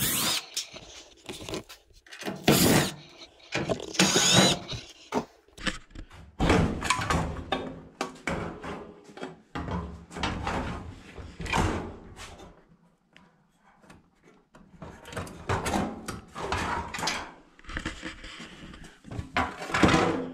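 A cordless drill/driver backing screws out of a dryer's sheet-metal cabinet, then the steel panels being pulled loose and handled. Short bursts of drill whirring among irregular metal clanks, rattles and scrapes.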